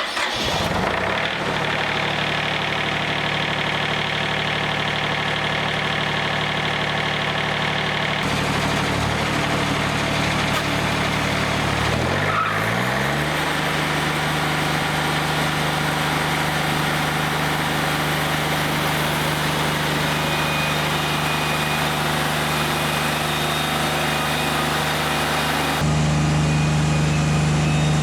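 Diesel engine of a Wood-Mizer LT40 Wide sawmill running steadily, then revving up about twelve seconds in to a higher, steady speed. It grows louder again near the end.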